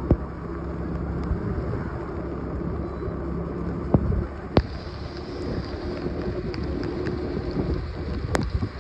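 Riding a TVS scooter: wind rushing over the microphone, with the engine running steadily underneath. A few sharp knocks break in, the loudest near the start and about halfway.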